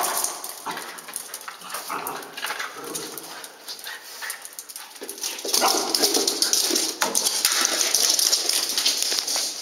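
A puppy whining and yipping in short, repeated bursts while it plays. From about five seconds in there is a louder, busier stretch of scuffling and knocks.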